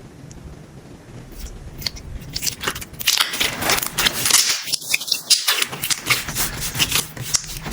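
Clear slime with bead and candy mix-ins being squeezed and kneaded by hand: quiet at first, then from about two and a half seconds in a dense run of crackling, clicking pops and squishes.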